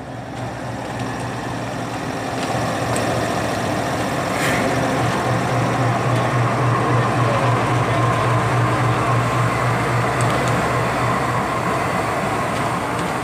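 Diesel locomotive engine idling: a steady low hum that grows louder over the first few seconds. A brief sharp click about four and a half seconds in.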